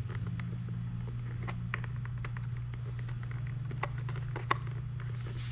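Scattered small clicks and taps of hands fitting the Onewheel's notched motor cable connector, one sharper click about four and a half seconds in, over a steady low hum.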